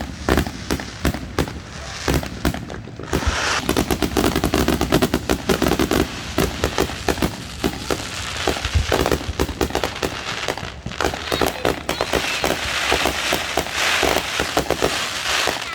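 Fireworks going off in a dense, unbroken string of sharp bangs and crackles, many per second.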